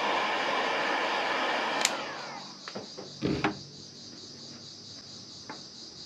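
Electric heat gun blowing steadily while heating heat-shrink tubing on a charger cable. It is switched off with a click about two seconds in, and its fan winds down with a falling whine. A few light knocks follow on the wooden bench, the loudest a double knock about a second later.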